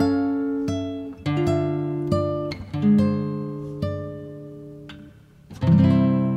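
Background music on acoustic guitar: plucked notes and chords that ring out and fade, with a louder strummed chord near the end.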